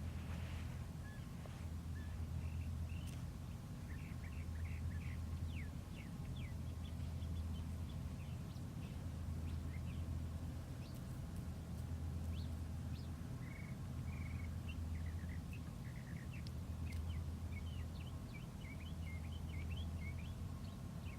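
Birds chirping and calling outdoors: many short, high chirps and quick pitch sweeps scattered throughout, over a steady low rumble that swells and eases every few seconds.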